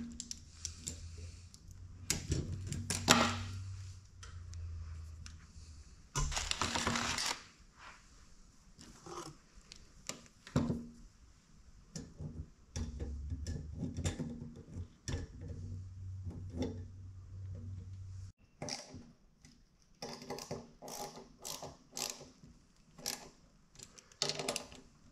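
Light metallic clicks and rattles from a wire fan guard and blower motor being handled and shaken on a wooden workbench, with a longer scrape about six seconds in. The guard is being checked for what the fan blade hits. Near the end comes a quick run of clicks as a wrench works on the hub.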